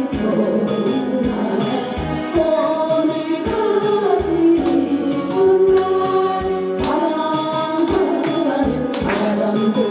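A group of voices singing a gospel song with band accompaniment and a steady drum beat.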